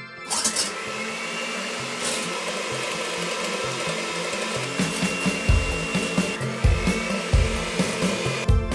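Electric hand mixer starting up about a quarter second in, its beaters whipping liquid cream in a stainless steel bowl, with the motor running steadily. Background music with a regular bass beat comes in about five seconds in.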